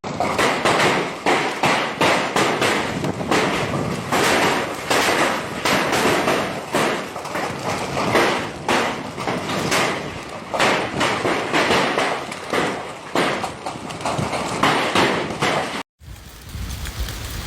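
Hailstones pelting a hard surface, a dense, irregular clatter of many impacts. Near the end it cuts abruptly to a steadier hiss.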